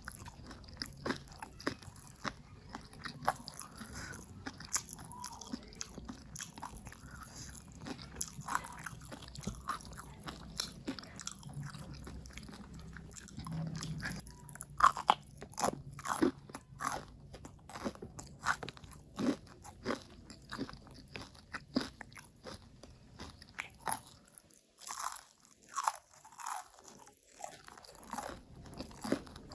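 Close-miked eating: a person chewing and biting into crunchy food, with many irregular sharp crunches that come thickest and loudest about halfway through.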